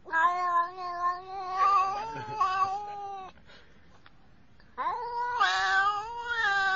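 Domestic cat giving long, drawn-out meows with a wavering pitch: one call of about three seconds, a short pause, then a second starting about five seconds in and still going at the end.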